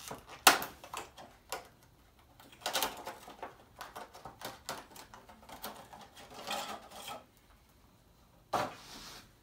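Clear plastic wrapping crinkling and tearing as it is pulled off a kendama, in irregular bursts, with a sharp crack about half a second in.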